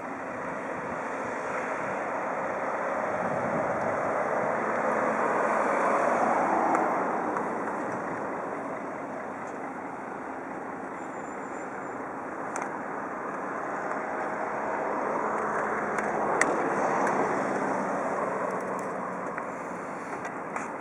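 Road traffic passing: the rush of vehicles swells and fades twice, loudest about six seconds in and again near the end.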